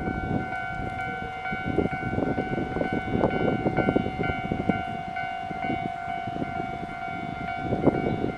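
Japanese level crossing warning bell ringing steadily, with a train rumbling and clattering over the rails below it.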